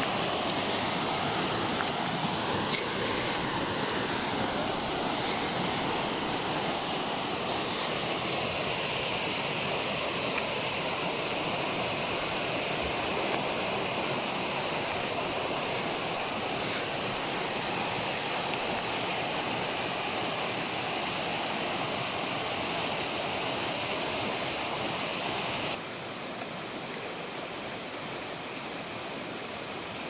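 Steady rush of water from a small forest waterfall. It drops abruptly to a quieter level about four seconds before the end.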